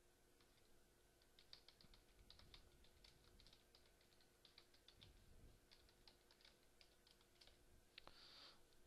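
Faint typing on a computer keyboard: irregular runs of quick keystrokes, with a short hiss near the end.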